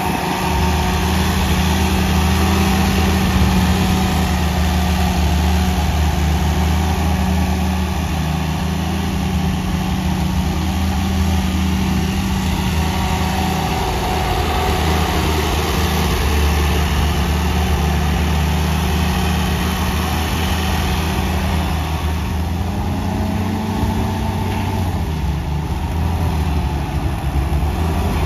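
Allis-Chalmers D15 Series II tractor's four-cylinder engine running steadily at low speed as the tractor is driven slowly. The engine note lifts slightly about three-quarters of the way through.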